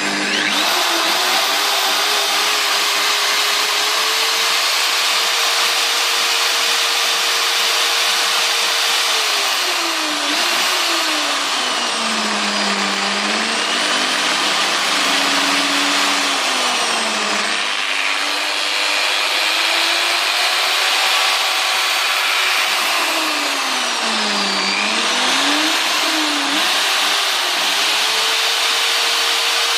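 Corded hammer drill's brushed motor running continuously with a high whine; its speed drops and comes back up twice, about a third of the way in and again later. It runs but is 'not very happy': the commutator bars and field windings look worn.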